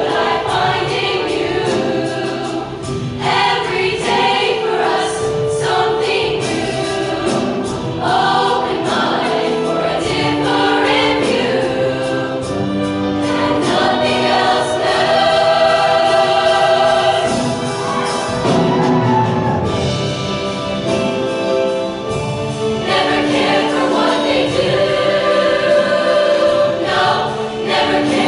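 A show choir singing in full chorus, many voices together.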